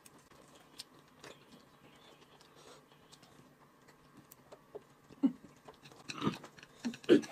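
A person eating noodles with chopsticks: quiet chewing and mouth sounds that grow louder in the last two seconds, with a few faint clicks in the first seconds.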